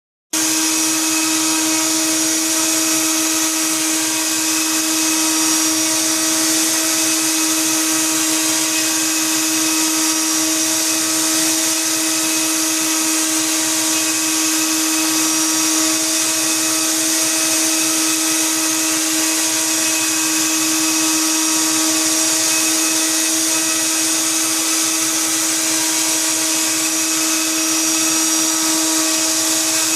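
Bosch 1617EVS wood router motor running at a steady speed: an even, high whine over a rushing hiss of air, with no change in pitch or level.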